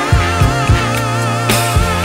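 Background music with a steady beat: one long held note with vibrato over drums and bass.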